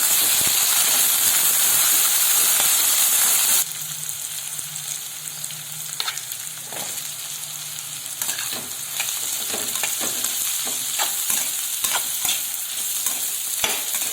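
Chopped brinjal and boiled air potato sautéing in hot oil in a pan: a loud steady sizzle that drops off abruptly a few seconds in, then quieter sizzling with a spoon scraping and knocking against the pan as the vegetables are stirred.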